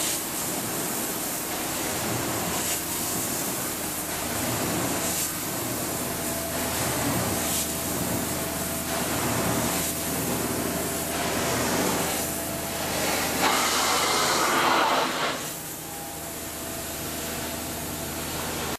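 Modified ProChem carpet-cleaning wand worked across carpet on a truckmount system: a steady rush of vacuum suction and hiss as the wand head is stroked back and forth. The sound swells briefly and then drops about three seconds before the end.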